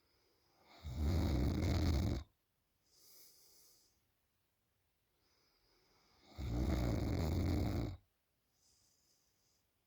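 A sleeping woman snoring loudly: two long snores about five and a half seconds apart, with quieter breaths between them.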